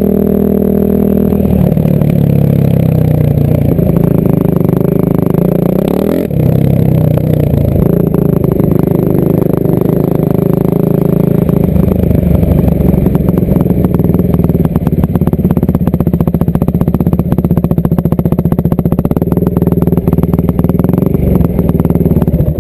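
Yamaha WR450F dirt bike's single-cylinder four-stroke engine running close up under the rider. Its note shifts with throttle and gear changes in the first few seconds, then settles into a slower, pulsing beat as the bike rolls along at low speed.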